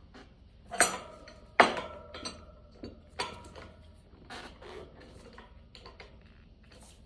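Metal tire-changing tools clinking against the wheel rim as the tire bead is worked on. Two sharp ringing clinks come about a second and a second and a half in, followed by lighter clicks and knocks.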